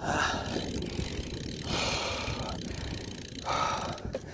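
A cyclist breathing hard while climbing on the bike: three heavy breaths, near the start, about two seconds in and about three and a half seconds in, over a steady low rumble of wind and road noise.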